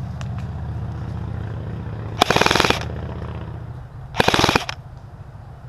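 Airsoft rifle firing two short full-auto bursts, each about half a second of rapid shots, about two seconds apart.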